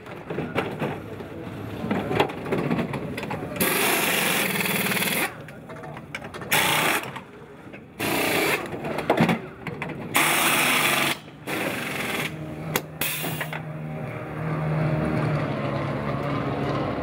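Pit-stop tyre change: pneumatic wheel guns (air impact wrenches) rattling in repeated bursts of about a second each, with pauses between them. A low steady hum sets in over the last few seconds.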